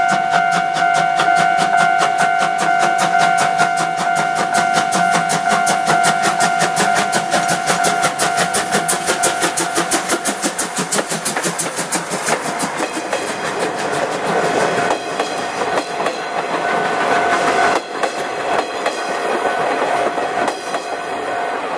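C12 steam locomotive passing close by, its exhaust chuffing in a fast, even beat, followed by the coaches rolling past with wheels clicking over the rail joints. A steady ringing tone runs underneath throughout.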